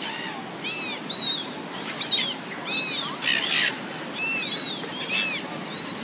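A flock of silver gulls squawking over and over, short harsh calls that arch down in pitch, about two a second, as they crowd around food being thrown to them.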